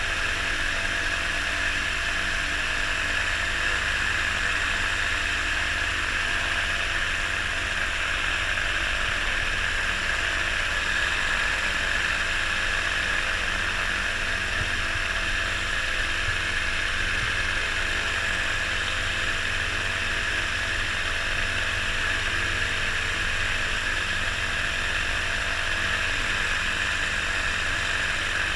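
Weight-shift microlight trike's engine and propeller running at a steady speed, with no rise or fall in pitch.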